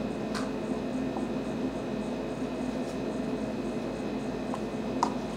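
Steady hum of ventilation in a small room, with a couple of faint clicks, about half a second in and again near the end.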